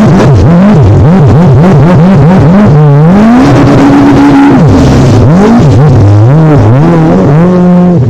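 Jet ski engine revving up and down in quick swoops, several times a second, as the craft rides over choppy waves. It holds a steady high pitch for about a second midway through.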